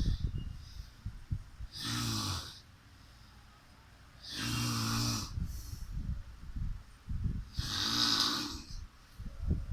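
Snoring: three long snores, each lasting about a second and spaced about three seconds apart, with low irregular thumps and rumble between them.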